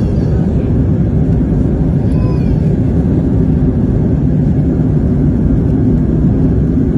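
Steady low rumble of an airliner in flight, its engines and airflow heard from inside the passenger cabin.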